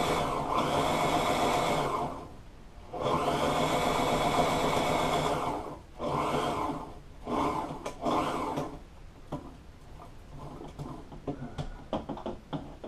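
Electric sewing machine stitching vinyl, running in spurts: two runs of about two seconds each, then three short bursts, then only faint clicks over the last few seconds.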